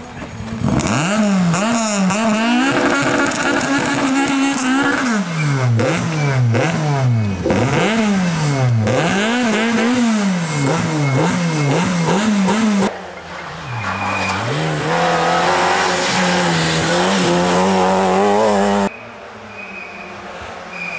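Peugeot 205 rally car's engine revving hard again and again, the revs rising and falling quickly, as it is pushed out of the ditch and drives back onto the road. After a sudden cut about two-thirds through, an engine runs at steadier high revs.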